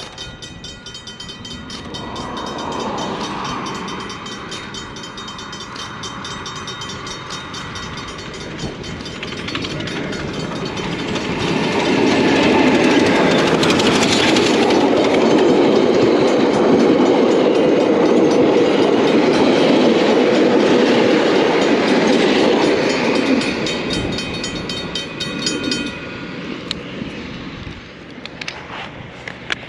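New Zealand Railways Ja-class steam locomotive 1271 and its carriages passing close by on the track. The noise builds over the first dozen seconds, stays loud for about ten seconds as the train goes by, then dies away.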